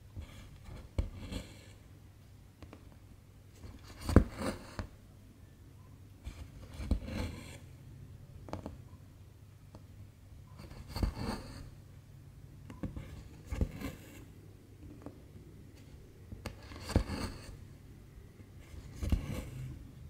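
Needle and silk thread drawn through 11-count cross-stitch fabric, a stitch every two to three seconds. Each pull is a short scratchy rasp that starts with a light click.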